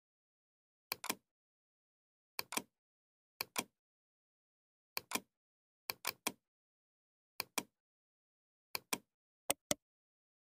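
Computer mouse buttons clicking, each click a quick press-and-release pair, about eight times with pauses between and a faster double click about six seconds in.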